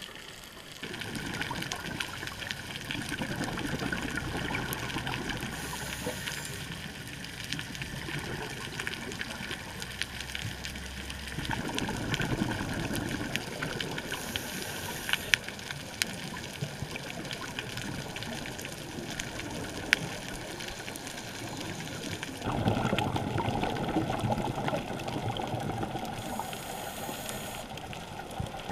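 Underwater sound of a scuba diver breathing: the rush and gurgle of exhaled bubbles in long stretches, with a brief regulator hiss three times. A few sharp clicks, two of them louder, break through.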